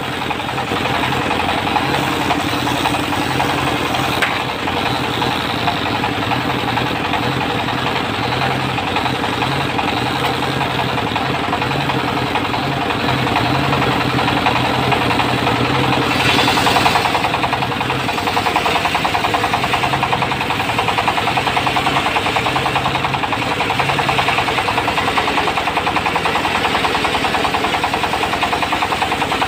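Diesel engine of a portable circular sawmill running steadily with a fast, dense knocking beat. About halfway through the sound briefly swells and grows brighter, then settles into a more evenly pulsed running.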